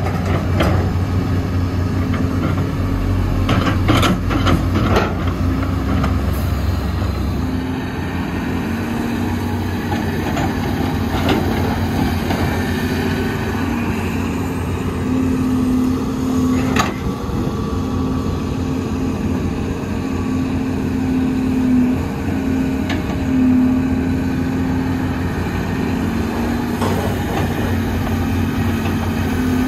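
Heavy diesel engines of an excavator and dump trucks running steadily, the engine note shifting a little as the machine works, with several sharp knocks and clanks.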